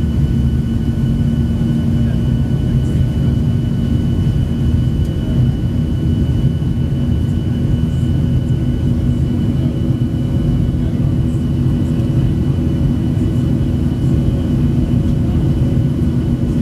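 Cabin noise of a Boeing 737-700's CFM56-7B turbofan engines climbing out after takeoff, heard from inside over the wing: a steady low rumble with a few steady hum tones on top.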